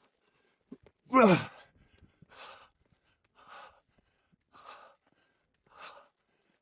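A man's loud sigh, falling in pitch, about a second in, then heavy, even breathing at about one breath a second: a climber winded from exertion on the steep granite climb.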